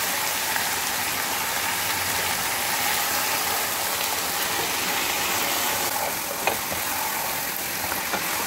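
Raw mutton pieces sizzling steadily in hot oil with fried onions, with a few light knocks of a spatula stirring the meat about six and a half seconds in and again near the end.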